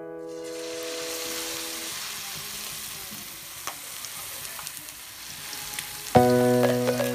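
Chicken drumsticks deep-frying in hot oil: a steady sizzle with scattered pops and crackles. Piano music fades out over the first two seconds and comes back loudly about six seconds in.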